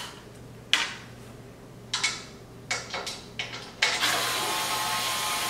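About six sharp clicks and ticks of a screwdriver working T20 Torx screws out of a Corvette rear window surround, followed by a steady hiss from about four seconds in.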